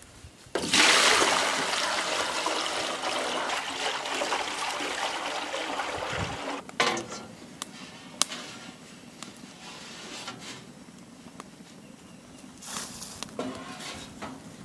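Maple sap poured from a plastic bucket into an aluminium roasting pan: a steady rush of pouring liquid starting about half a second in and tapering off over about six seconds. Afterwards a few sharp clicks and knocks as the pan is handled onto the metal grill over a wood fire.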